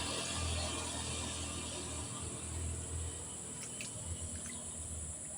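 Steady outdoor background of insects making a high, even hiss, with patchy low rumbling and a few faint clicks a little past the middle.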